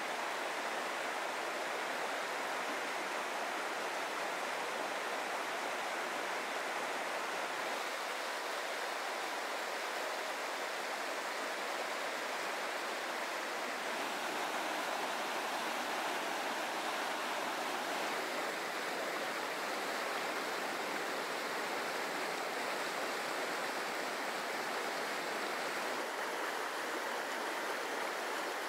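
Mountain trout stream running high, its water rushing over boulders and small cascades in a steady rushing noise. The tone shifts slightly a few times, about every 4 to 8 seconds.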